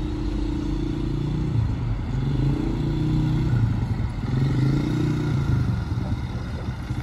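Small 200 cc quad bike (ATV) engine running as it is ridden over a dirt track, its pitch rising and dropping back a few times as the throttle is opened and eased.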